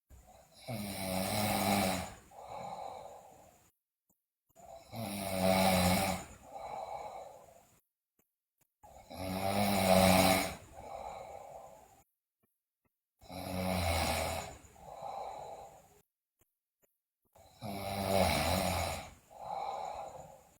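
A sleeping girl snoring loudly, five breaths about four seconds apart. Each is a long, loud snore with a low buzz, followed by a shorter, softer second sound.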